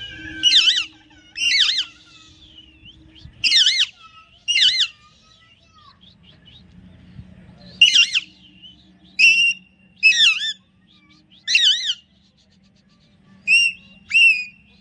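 Alexandrine parakeet calling: about ten short, loud, whistled calls with a wavering pitch, coming singly or in pairs with gaps of up to two seconds; the last two are flatter, held whistles.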